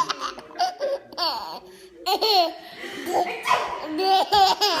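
A baby of about 15 months laughing hard in bursts. There are high squealing laughs that fall in pitch about a second and two seconds in, and a run of quick laughs near the end.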